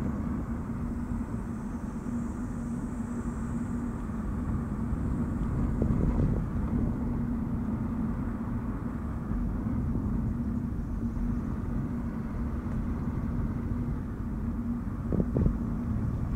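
Nissan Note e-Power driving on a winding road: steady road and drivetrain rumble with a constant low hum, and a few short knocks about six seconds in and again near the end.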